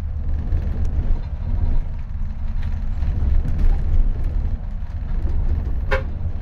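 Steady low rumble of a moving road vehicle, engine and road noise heard from on board, with a short click near the end.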